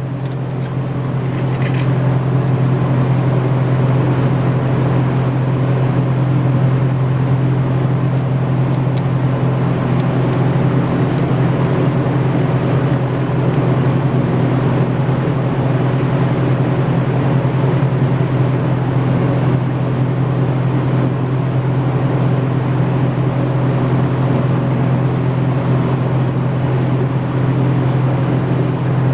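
A steady, loud mechanical drone from a running motor or engine, with a constant low hum. It builds up over the first couple of seconds, then holds even, with a few faint ticks over it.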